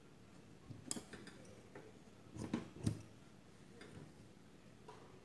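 Large tailor's shears cutting fabric: a string of short, irregular snips and blade clicks, loudest about two and a half and three seconds in.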